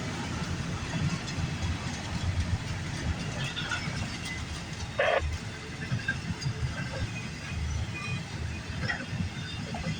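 CN freight train cars rolling past on the track, a steady, uneven low rumble of wheels on rail. A brief sharp tone sounds about halfway through.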